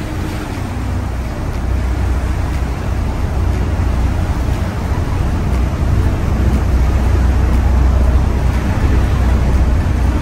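Steady low rumble of a sightseeing boat's engine mixed with the rush of churning seawater, getting somewhat louder over the seconds.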